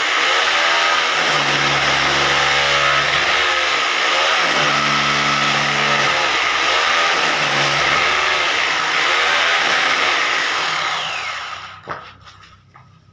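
Hammer drill cutting under load, its motor pitch repeatedly dipping and recovering as it bites, then winding down about eleven seconds in, with a sharp click just after.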